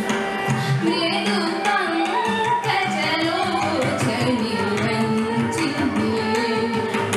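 A woman singing a Carnatic keerthanam over a steady drone, with hand-drum accompaniment.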